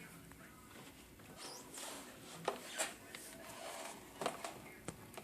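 A few faint sharp clicks and a short soft rustling scrape, small close-up handling or contact noises.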